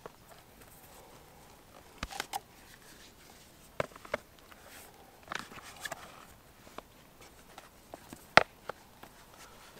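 Scattered light clicks and scuffs over a quiet background: a few close together about two seconds in, two more about four seconds in, and the sharpest click near the end.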